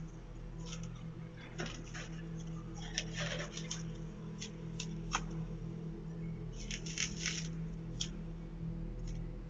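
Doorbell-camera microphone audio: a steady low electrical hum under scattered faint clicks and rustles, which cluster around three seconds in and again around seven seconds in.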